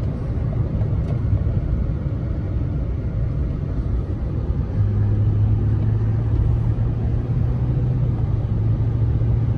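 Interior road and engine noise of a GMC Sierra 2500 HD pickup on the move, heard from inside the cab. A steady low drone is broken up for the first few seconds and comes back steady about halfway through, over continuous tyre and road rumble.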